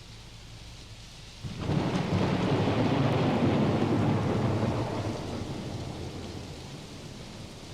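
Recorded thunderstorm: steady rain, then a roll of thunder that breaks in about a second and a half in and slowly rumbles away over the next five seconds.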